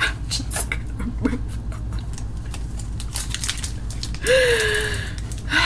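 Pokémon trading cards being flipped and slid through the hands, a run of light, quick clicks of card stock. A short vocal groan with falling pitch comes about four seconds in and is the loudest sound.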